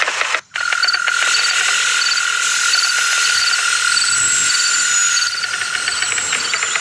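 Frogs calling in a chorus: one steady trill runs on, with short high chirps repeating about twice a second. A brief dropout comes about half a second in.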